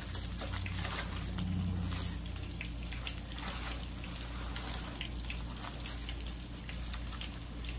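Breaded chicken cutlet frying in oil in a pan on the stove: a steady sizzle with small crackles, over a low steady hum.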